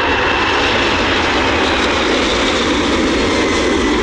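Steady airplane engine noise: an even rushing sound with a faint high whine through it.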